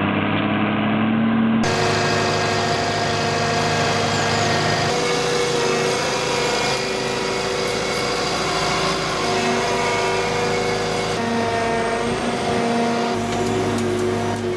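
Heavy machinery engine running steadily with a hum of several tones, the sound changing abruptly several times.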